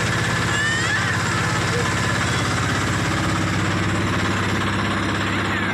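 Passenger trawler's engine running steadily while the boat is under way, a continuous low drone.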